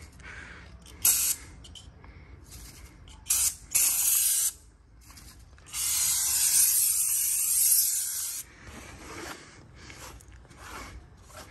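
Aerosol tyre-shine spray hissing onto a tyre sidewall: a few short bursts, then one long spray of about two and a half seconds.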